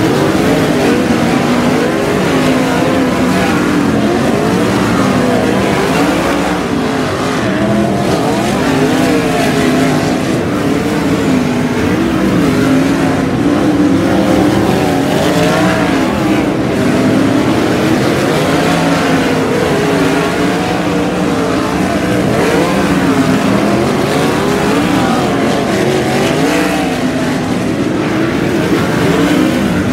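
A pack of 360 sprint cars racing on a dirt oval. Their 360-cubic-inch V8 engines overlap, each rising and falling in pitch as the cars circle the track.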